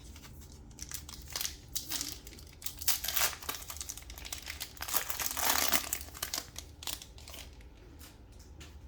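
Trading-card pack wrapper crinkling as it is handled, in irregular crackly bursts, loudest about three seconds in and again between five and six seconds.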